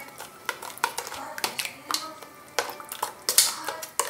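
A spoon stirring and clinking against the side of a bowl, mixing sugar and cornflour into grape juice, with irregular sharp clinks.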